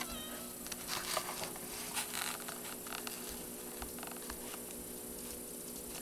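Faint scattered taps, rustles and light footsteps of a toddler moving about a room, over a steady low hum.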